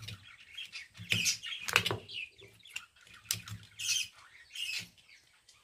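Small birds chirping in short, scattered calls, with a few sharp clicks among them.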